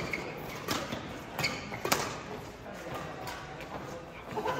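Badminton rackets striking a shuttlecock during a doubles rally: several sharp hits in the first two seconds, the strongest about two seconds in, echoing in a large sports hall.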